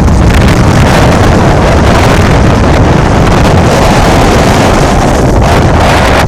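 Blizzard wind blasting and buffeting the microphone: loud, steady, rumbling wind noise.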